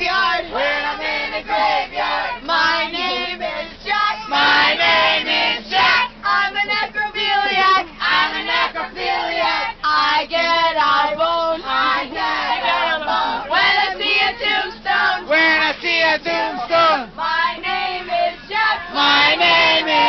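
A woman singing a call-and-response song into a bus's PA microphone, with a crowd of passengers singing each line back to her.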